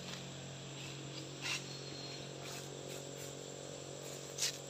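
Outdoor ambience: a steady hiss of insects over a low, even hum, with two brief crunching rustles of dry leaves, about a second and a half in and again near the end.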